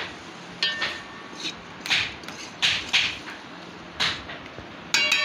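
A metal ladle knocking and scraping inside an aluminium cooking pot as food is stirred, in a series of short clinks. Near the end comes a louder metal clang that rings on.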